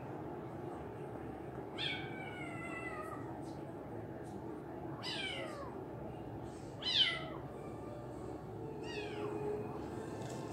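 Siamese kitten meowing four times, each call sliding down in pitch. The first is the longest and the third the loudest, at about two, five, seven and nine seconds in.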